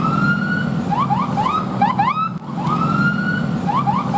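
Bus telolet horn playing its multi-note tune: one long rising note followed by a quick run of short rising notes, the phrase played twice. A steady low hum runs underneath.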